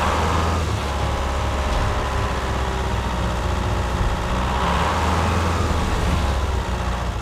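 Heavy vehicle engine running steadily with a low drone.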